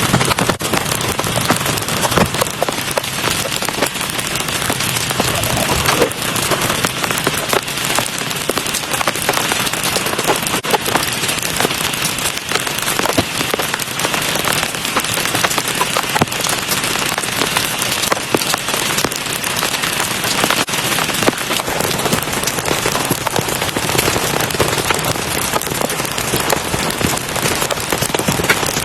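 Heavy rain falling steadily, with many sharp individual drop impacts on a near surface.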